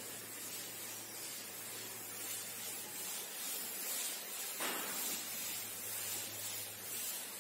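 Chalkboard duster rubbing over a chalkboard, wiping off chalk in repeated swishing strokes, over a steady low electrical hum and hiss.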